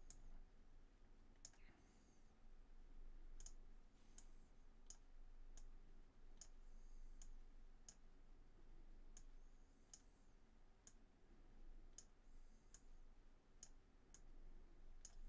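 Faint computer mouse clicks, irregular and about one or two a second, as sliders in a 3D character editor are clicked and dragged.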